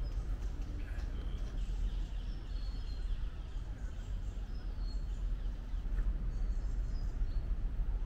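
Steady low rumble of wind on the microphone, with birds chirping now and then in short high notes.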